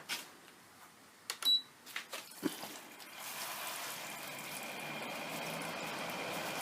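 A few clicks and a short beep as the Haier window air conditioner is switched on, then from about three seconds in its fan spins up and runs with a steady whoosh and a faint whine. No rubbing is heard: the fan has been re-centred so it clears the styrofoam housing, and it runs pretty well.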